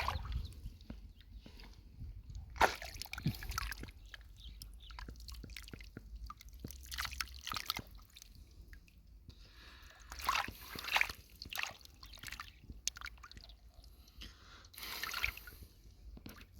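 Shallow lake water sloshing, dripping and splashing in irregular bursts, with small knocks and clicks, as hands work through the water gathering snails and clams.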